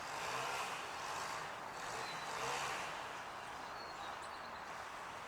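Steady distant engine noise, with a few faint, short bird chirps on top.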